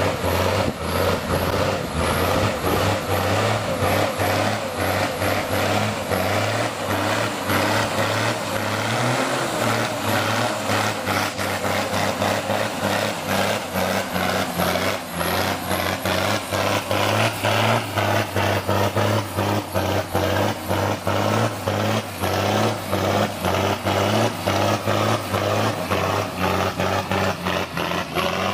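Military six-wheel-drive cargo truck's engine running hard under load as the truck climbs a muddy trail: a steady low drone with a fast, even pulsing from the exhaust.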